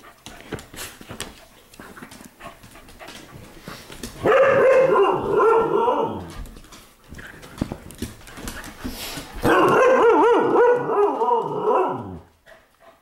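Husky-type dog vocalising in play: two long, wavering calls of about two seconds each, one about four seconds in and another near ten seconds, with short clicks between them.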